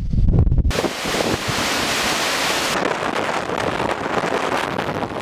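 Strong wind buffeting the microphone with a deep rumble, then a steady rushing noise across the whole range that sets in abruptly about a second in.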